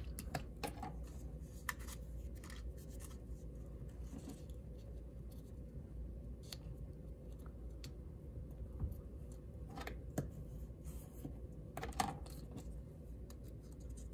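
Cardstock being folded and creased by hand: soft rustles with scattered crisp paper crackles, the loudest about ten and twelve seconds in, over a low steady background hum.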